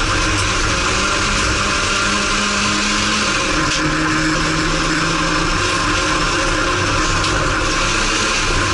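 Inside a Renault Clio race car running flat out on a dirt autocross track: the engine runs hard at high revs, its note dropping about three and a half seconds in, over steady noise from the tyres and loose dirt.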